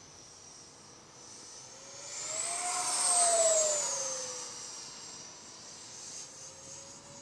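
XFly Su-27's twin 50 mm electric ducted fans whining as the jet makes a low pass. The whine swells and rises in pitch to its loudest about three seconds in, then drops in pitch and fades away.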